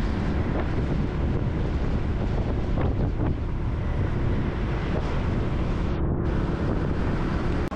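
Wind buffeting the microphone of a camera on a moving motorcycle, a steady dense rumble with the ride's road noise underneath. The level drops suddenly right at the end.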